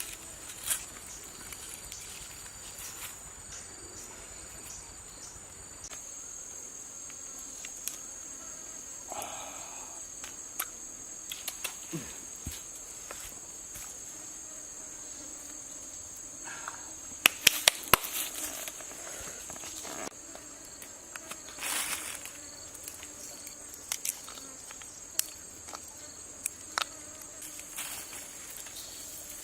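Insects, crickets or similar, trilling steadily at a high pitch, with scattered sharp clicks and knocks of handling, several close together about two-thirds of the way through.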